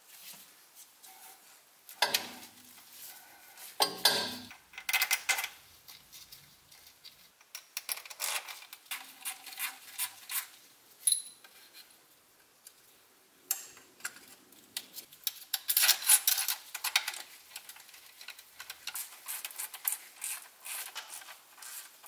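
Hand tools on the bolts of an automatic transmission's valve body: scattered metal clinks and short runs of quick clicking as the bolts are run in.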